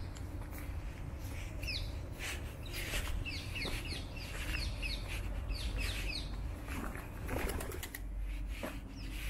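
Small birds calling with short, falling chirps, repeated many times through the middle seconds, over a steady low rumble. About seven seconds in comes a brief flurry of soft flutters.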